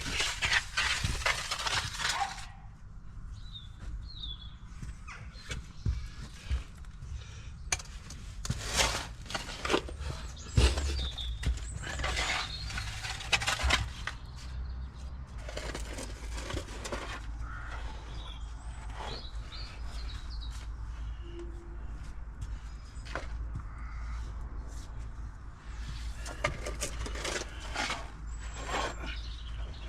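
Long-handled shovel digging into soil and rubble: gritty scraping and chopping strokes of the blade, coming in irregular bursts a few seconds apart.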